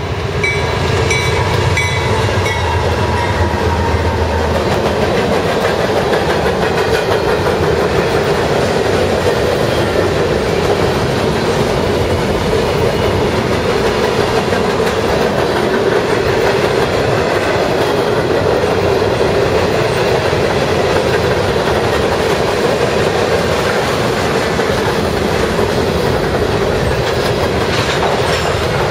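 BNSF diesel-hauled freight train passing close by. A low engine rumble from the lead locomotives sounds for the first few seconds, then a steady, loud rolling noise as the freight cars go past.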